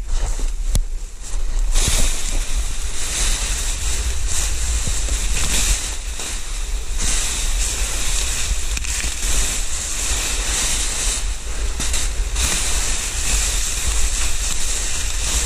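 The envelope of a large festival balloon rustling and crackling continuously as it is hauled in and bunched up, getting much louder about two seconds in, over a steady low rumble on the microphone.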